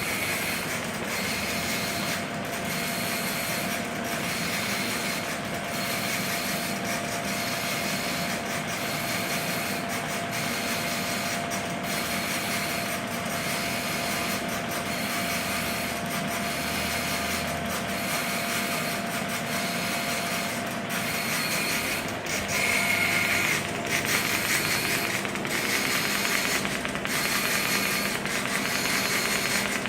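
Orbital TIG welding on steel pipe with a Polysoude MU IV 115 weld head: a steady hissing arc with the head's motor running, dipping regularly about every one and a half seconds. It grows louder and rougher about three-quarters of the way through.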